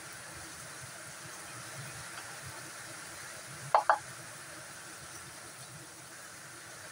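Kitchen knife work on a wooden cutting board: two sharp knocks in quick succession about halfway through, over a steady hiss.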